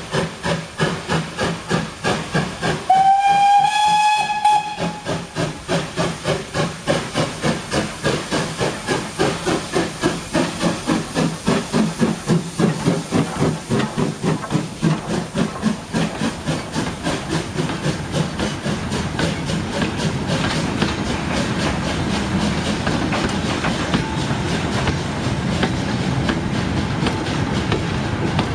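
Steam locomotive working a goods train past: the exhaust chuffs in an even rhythm of a few beats a second, with one whistle blast of about two seconds near the start. From about two-thirds of the way through, the passing wagons give a steadier rolling rail noise.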